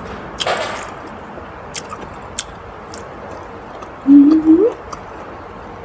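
Eating sounds: a short wet squish as food is picked up by hand near the start, then soft chewing and mouth clicks. About four seconds in comes a brief closed-mouth "mmm" hum that rises in pitch at the end, the loudest sound here.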